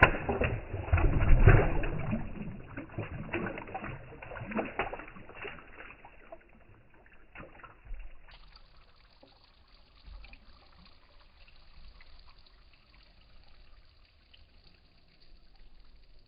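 Water splashing and pouring, loudest in the first three seconds, then dying away to scattered trickles and drips.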